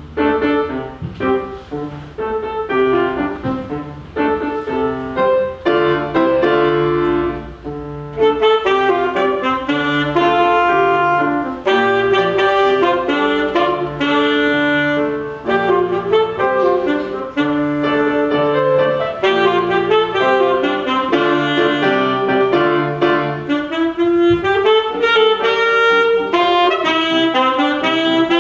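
Alto saxophone playing a melody of short and held notes, accompanied by piano chords in a steady, repeating pattern.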